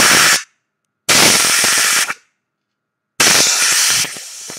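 Compressed-air blow gun blasting through a crankcase bearing to spin it and clear out paraffin and metal grit. Three separate bursts of hissing air, each about a second long, the last dropping to a softer hiss near the end.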